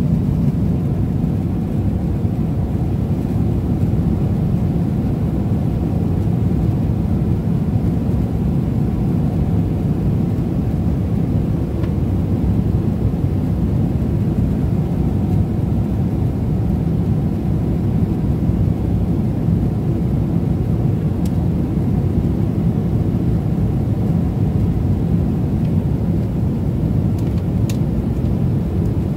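Steady airliner cabin noise at cruise: the even rumble of the engines and airflow heard inside the cabin. A few faint ticks come near the end.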